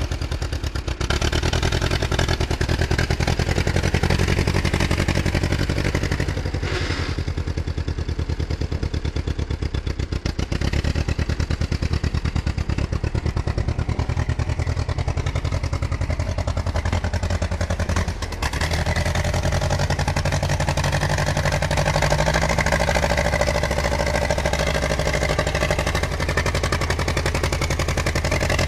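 David Brown VIG1 aircraft tug's engine running steadily while the tug drives along, with a brief drop in the engine note about two-thirds of the way through before it picks up again.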